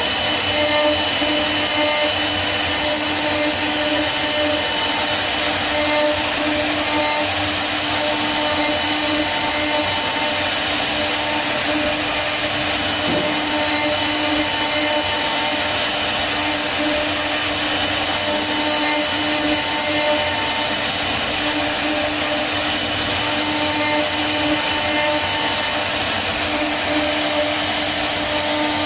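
CNC router's high-speed spindle running steadily as its bit carves a relief into a wooden panel. It makes a constant mechanical hum with several held tones over an even cutting hiss.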